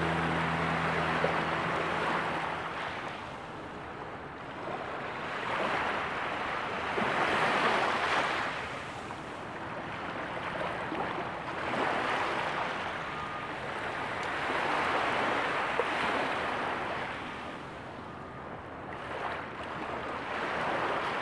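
Sea waves washing onto a sandy shore, swelling and drawing back every few seconds.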